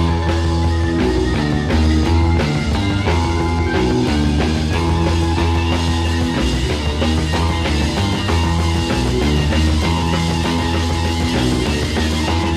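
Background rock music with guitar and a strong, steady bass line.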